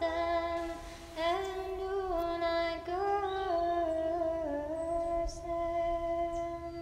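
A woman's voice singing a slow melody, long held notes that step up and down in pitch, with a short break for breath about a second in.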